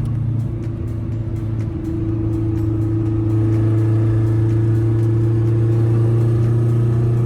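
1996 Acura Integra engine through a straight-pipe exhaust, droning steadily at one pitch while driving, getting louder about three seconds in.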